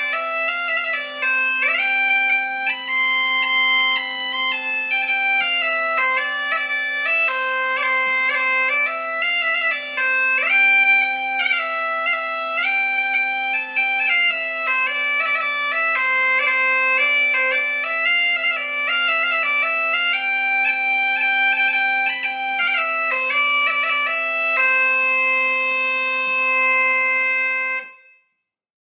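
Reconstructed medieval bagpipe playing a melody over a steady low note. It ends on a long held note that cuts off shortly before the end.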